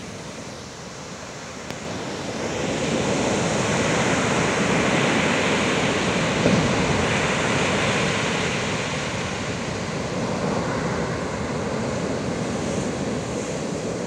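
Ocean surf: a wave breaks and its wash rushes up the beach, the sound swelling about two seconds in and then slowly easing off.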